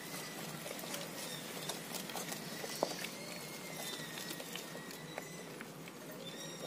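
Wooden hand masher (mathu) churning cooked toor dal and drumstick leaves in a clay pot: soft squelching with scattered light clicks of the masher against the pot.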